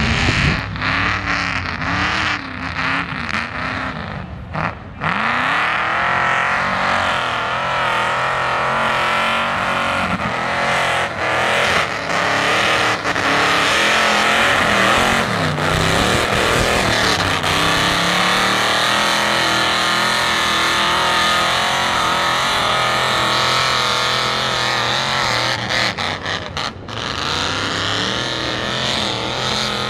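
Open-exhaust Ford mud truck engine revving hard as the truck churns through deep mud on bogger tyres. The revs rise and fall for the first few seconds, dip briefly, then hold high and steady.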